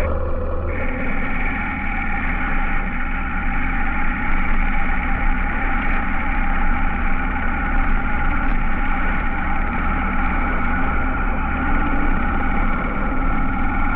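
Honda H'ness CB350's single-cylinder engine running steadily.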